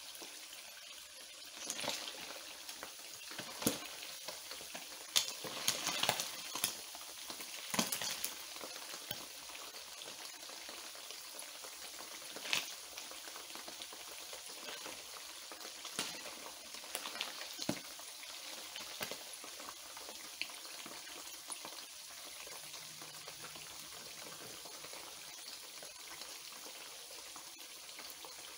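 Anchovies deep-frying in hot oil in a wok, with a steady sizzle. A wire mesh spider strainer stirs through them, scraping and clicking against the wok several times before the sizzle settles down steady near the end.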